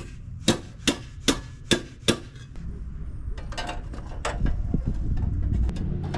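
A hammer striking six quick, evenly spaced blows, about two and a half a second. After that comes a steady low rumble with a few lighter knocks and clatter.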